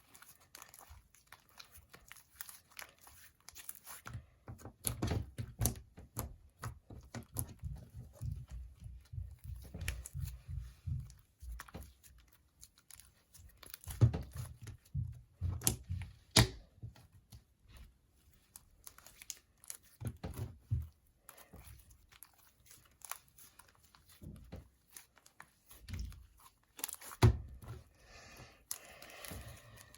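Hands squishing and stretching slime with Play-Doh worked into it: irregular wet squelches, sticky pops and crackles, with a few sharper snaps.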